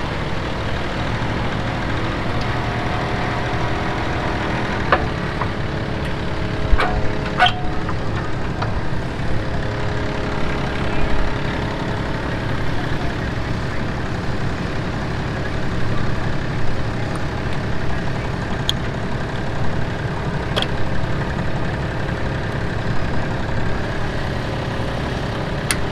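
Schaffer mini articulated loader's engine idling steadily, with a few sharp metallic clicks and clanks as the grapple attachment's hydraulic hose couplings are handled.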